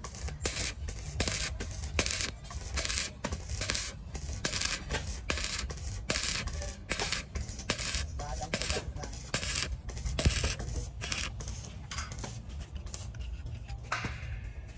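Rhythmic rasping strokes of work done by hand, about two or three a second, over a steady low rumble. Near the end the strokes give way to a different, smoother sound.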